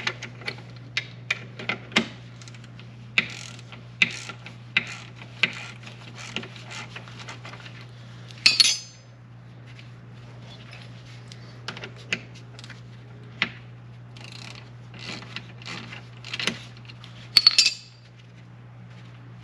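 Hand ratchet and metal tools clicking and clinking in single sharp strokes as a 13 mm brake caliper bolt is worked loose, with two louder, brief metallic rattles, one about halfway through and one near the end.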